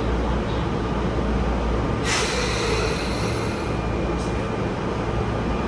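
Inside a JR E233-7000 series electric commuter car: a steady low hum and rumble, with a hiss of compressed air about two seconds in that lasts over a second.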